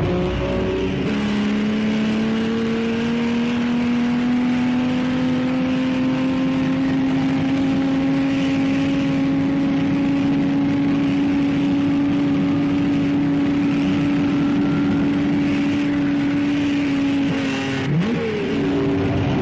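Maserati 250F Grand Prix car's engine running hard under full throttle, its pitch climbing slowly and steadily for about sixteen seconds. Near the end the pitch drops, then briefly rises again.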